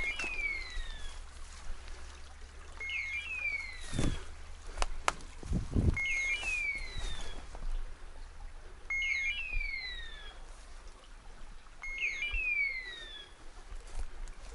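Hunting dog's beeper collar sounding its point signal: a short electronic beep followed by a falling, hawk-like screech, repeated about every three seconds, five times. This marks the setter holding point a few metres away. Footsteps crunch through dry brush between the calls.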